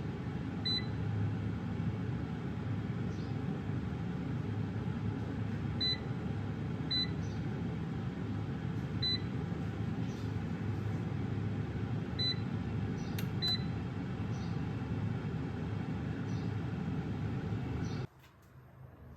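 A kitchen appliance's motor or fan runs with a steady low whir, while its control panel gives short electronic beeps about six times as buttons are pressed. The whir stops suddenly near the end.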